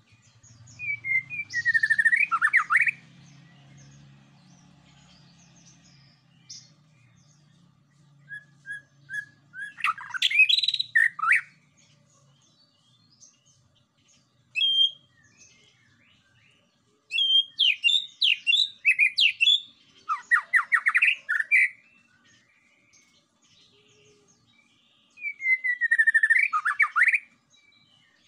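White-rumped shama singing in loud bursts of rapid, sweeping whistled notes, each phrase lasting a second or a few seconds, with pauses of a few seconds between them.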